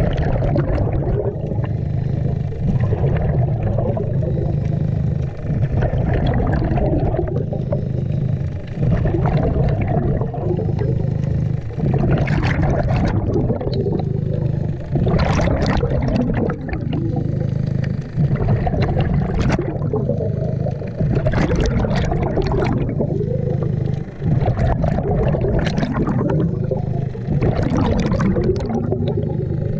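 Underwater sound at a hose-fed diver's mask: breathing through the regulator, with exhaled bubbles gurgling past in bursts every few seconds over a steady low rumble.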